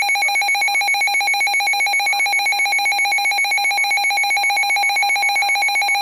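Emergency alert tone sounding loud and unbroken, a set of fixed tones pulsing rapidly at about a dozen pulses a second: the attention signal that announces a new severe weather warning.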